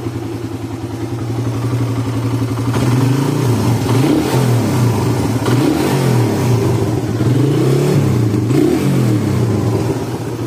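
Suzuki Satria FU 150's single-cylinder four-stroke engine, in stock form, idling steadily for a couple of seconds and then being blipped repeatedly, its pitch rising and falling about half a dozen times.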